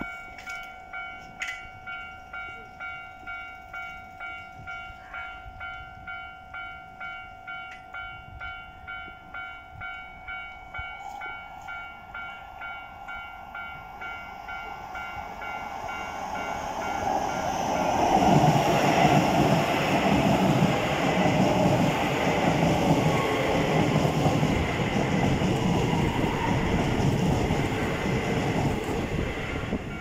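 Level-crossing warning bell ringing in a steady, even ding rhythm. About halfway through a Keisei 3000 series electric train approaches and passes at speed. Its rumble and wheel noise swell to the loudest part and drown out the bell, then fall away at the end.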